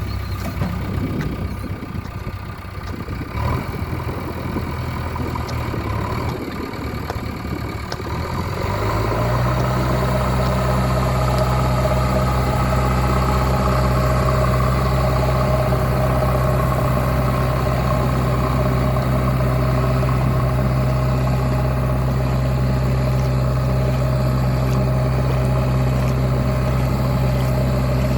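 JCB 3DX backhoe loader's diesel engine running, uneven at first, then settling about a third of the way in to a louder, steady note at higher speed.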